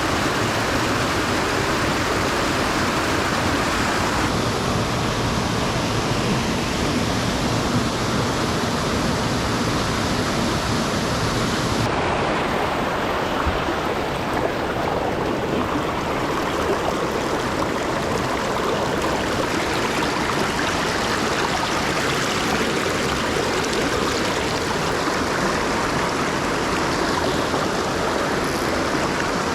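Mountain torrent rushing over rocks: a steady wash of running water that shifts slightly in tone about four and twelve seconds in.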